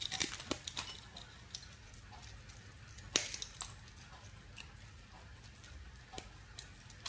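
Small flush side cutters snipping and prying thin spot-welded wires off a nixie tube's electrode assembly: faint scattered clicks and snips, the loudest about three seconds in.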